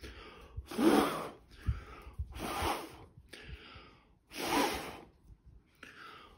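A person blowing hard through pursed lips onto wet acrylic pour paint to push it across the surface, the Dutch pour blow-out done by mouth instead of with a hair dryer. Three long puffs of breath, about two seconds apart.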